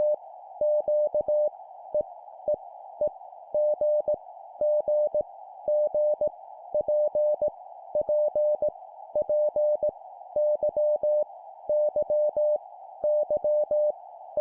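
Morse code (CW) sent at 17 words per minute: a single mid-pitched steady tone keyed on and off in dots and dashes, spelling random letters, each sent three times, in groups separated by short gaps. A steady narrow band of hiss runs underneath.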